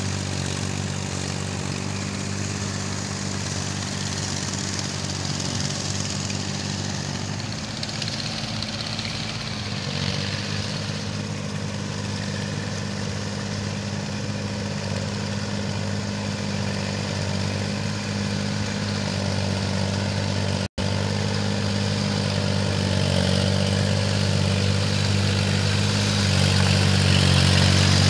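Kubota L4018 tractor's diesel engine running steadily while working a flooded rice paddy, growing louder near the end as the tractor comes closer.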